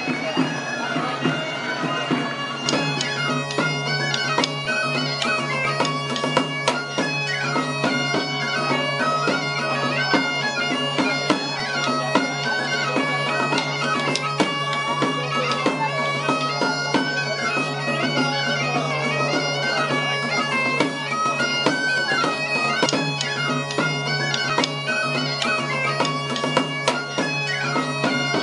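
Bagpipe music: a melody moving over a steady drone.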